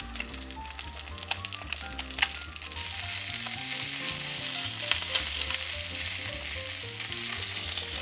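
Bone-in chicken thigh confit searing in hot oil in a frying pan over high heat, sizzling and crackling with spatters while a spatula works it. The sizzle grows louder about three seconds in.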